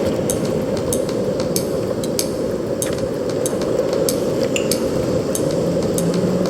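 Background music in a sparse passage: light clicking percussion, about two ticks a second, over a low rushing wash.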